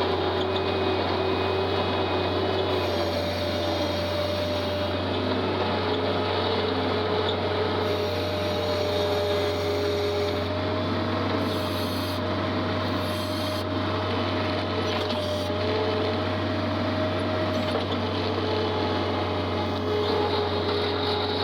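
Skid steer engine running steadily under load, with a steady whine that shifts slightly in pitch now and then.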